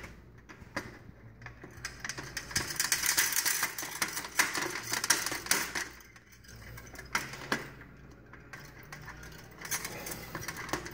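Pliers gripping and wiggling a knockout slug in the sheet-metal housing of an LED fixture, a run of small metallic clicks, rattles and scrapes that come in bunches.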